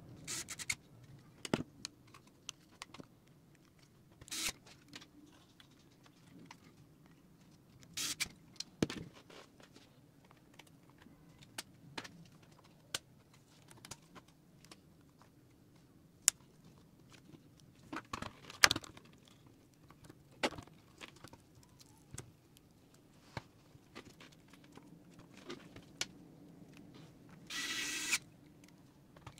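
Scattered light clicks and taps of small laptop parts, screws and tools being handled and fitted into a laptop's plastic bottom case. About a second and a half before the end, a small electric screwdriver whirs briefly, driving a screw.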